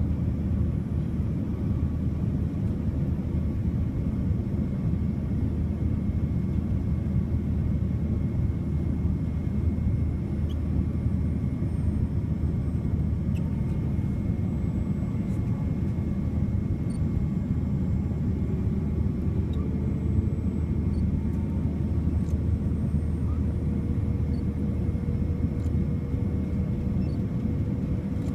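Steady rumble of a Boeing 787-9 airliner's cabin in flight, engine and airflow noise heard from a window seat, with a few faint steady hums above it.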